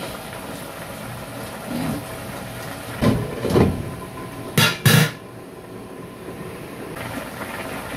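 A pan of fish simmering in vinegar broth, with knocks from a ladle, then two sharp clanks about four and a half and five seconds in as a glass pan lid is set down on the pan's rim.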